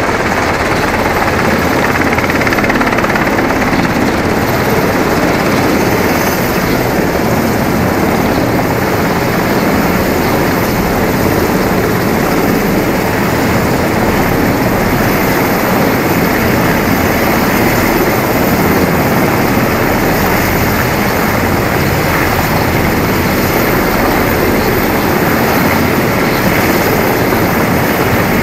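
Army Black Hawk helicopter running close by, its rotors and turbine making a loud, steady din.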